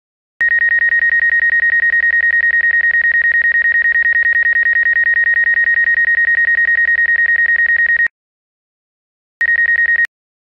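DJI flight app's obstacle-proximity warning: a rapid, even string of high-pitched beeps for about seven and a half seconds, a pause, then a short burst again near the end. It signals that the drone's obstacle sensors detect something within a metre or two.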